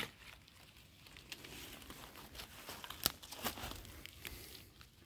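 Rustling and crinkling of leaf litter and undergrowth being handled, with a few sharp snaps, the loudest about three seconds in.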